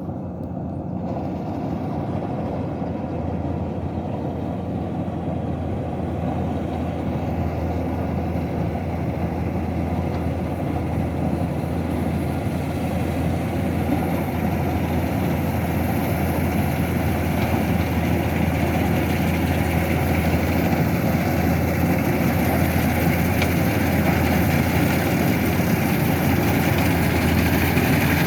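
Kubota DC-105X combine harvester's diesel engine running steadily with a low drone, slowly growing louder.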